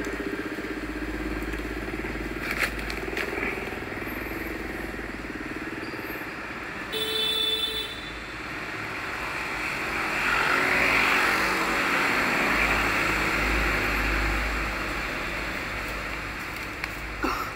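Steady background noise like passing motor traffic, swelling as a vehicle seems to go by a little past the middle, with a short pitched tone about seven seconds in.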